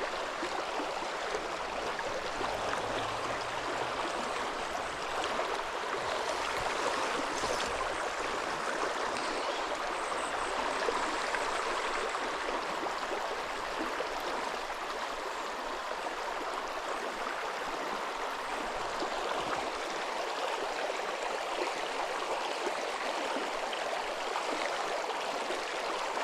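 Steady rush of a flowing stream or river over rocks.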